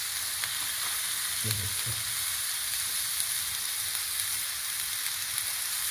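Chicken steak, fries and vegetables sizzling on a hot sizzler plate: a steady hiss with faint crackles.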